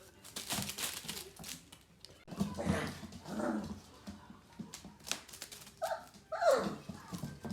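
Young Gerberian Shepsky puppies shuffling and clicking about, with a short whine that falls in pitch about six seconds in.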